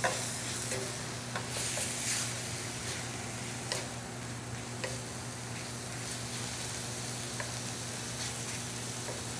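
Cubed pork sizzling in oil in a stainless steel skillet, stirred with a wooden spoon that knocks and scrapes against the pan now and then as it frees pieces sticking a little to the pan. The sizzle is louder in the first couple of seconds.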